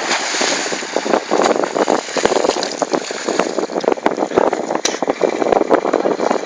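Rushing, splashing water and wind buffeting the microphone on a moving boat, in irregular surges with no steady engine tone.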